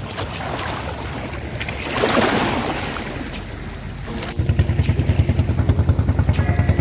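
Sea water sloshing with wind on the microphone, with a louder wash about two seconds in. A little past halfway, a small wooden fishing boat's engine comes in suddenly and loud, chugging with a steady rapid beat of about six a second.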